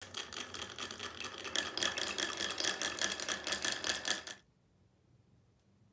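Glass marbles rolling one after another down a wooden wave-shaped marble-run track, a fast dense clatter of clicks and knocks as they bump through the dips and against each other. It stops suddenly about four and a half seconds in, leaving one faint click.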